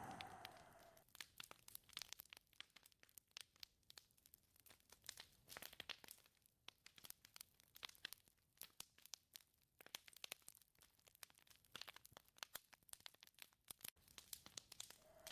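Wind howling, dying away in the first second and rising again near the end. In the lull between, the sound is very faint: scattered small crackles and clicks.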